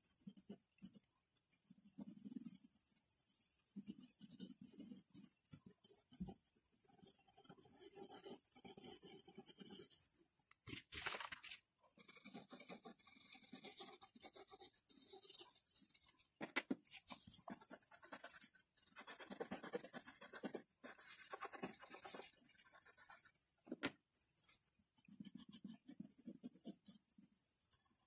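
Pencil graphite scratching and rubbing on drawing paper in runs of quick shading strokes, with short pauses between the runs.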